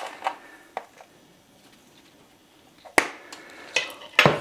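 Sharp clicks and knocks of kitchen utensils and containers being handled: a few faint ones in the first second, then louder ones about three seconds in and near the end.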